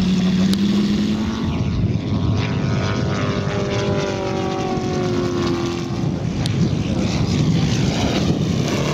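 Large-scale radio-controlled model Focke-Wulf Fw 190 flying past, its propeller engine droning with a pitch that slides slowly down as it passes. A steady engine note is heard in the first second or so before the fly-by.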